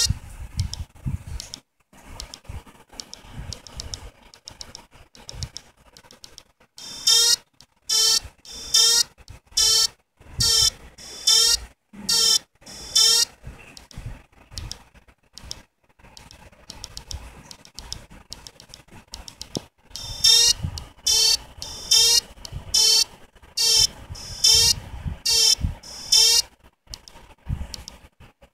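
A simple LED circuit giving off an unexpected electronic beeping: short buzzy tones, rich in overtones, repeating about every 0.7 seconds in two runs of beeps, with faint rustling and knocks in between.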